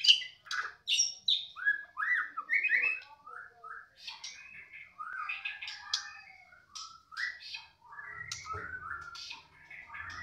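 White-rumped shama (murai batu) singing a rapid, varied song of sweeping whistles and chirps just after its cage cover is lifted, loudest in the first three seconds.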